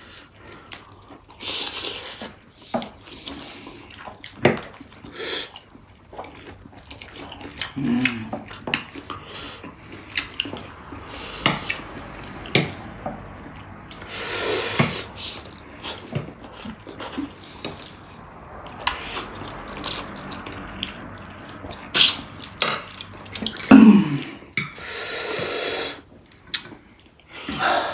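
People eating spicy ramen: long noisy slurps of noodles, chewing, and forks clicking and scraping on ceramic plates.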